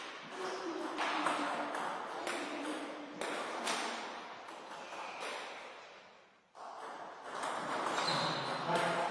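Table tennis ball being hit and bouncing, a string of sharp echoing clicks off bats and table. The sound drops out abruptly about two-thirds through and comes straight back as a rally's hits.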